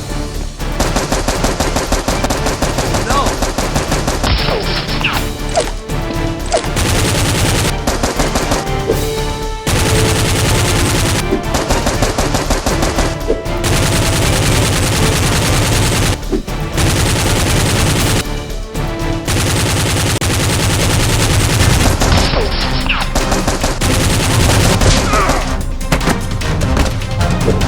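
Long bursts of rapid automatic gunfire, many shots a second, broken by short pauses every few seconds.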